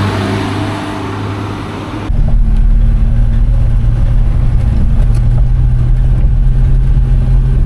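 A motor vehicle's engine running with a steady low drone that cuts in abruptly about two seconds in. Before that there is a fainter steady hiss with a low hum.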